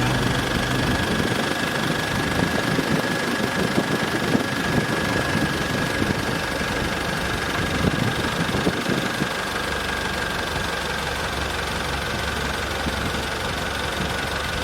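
Boat engine running steadily, with a steady high whine over its rumble.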